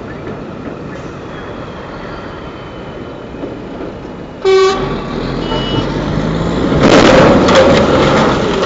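Street traffic at an intersection: a short vehicle horn toot about halfway through, then the loud, rattling noise of a heavy truck with a long trailer crossing close by, loudest near the end.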